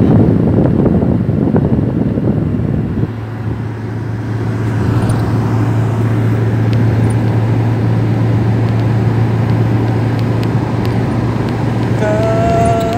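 Inside a car's cabin at highway speed: a steady engine drone with tyre and wind noise, louder for the first few seconds. A brief pitched tone that rises slightly sounds near the end.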